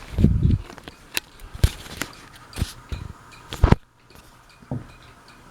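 A string of irregular knocks and clicks with a low rumbling thump at the start, which the speaker puts down to a shipping block.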